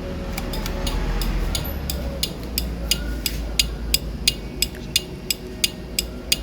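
Add-on relay wired into a Honda Click 150 scooter's turn-signal circuit clicking steadily with the flashing signal light, about three sharp clicks a second.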